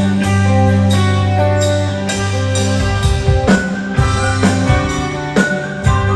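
Live rock band playing at a sound check, with no vocals: held bass and guitar notes, then the drum kit comes in with sharp hits about three seconds in.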